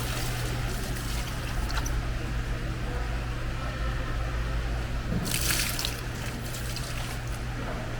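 Water trickling and sloshing over a steady low engine hum, with a brief louder splash about five seconds in.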